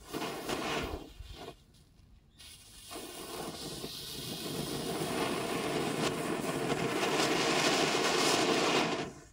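Small cone fountain firework spraying sparks with a loud rushing hiss: a short burst of hissing, a brief lull, then a steady hiss that builds for several seconds and cuts off suddenly near the end.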